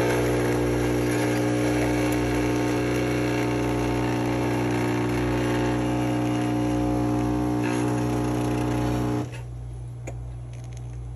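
Home espresso machine's pump buzzing steadily while pulling two espresso shots, cutting off abruptly about nine seconds in as the shots finish.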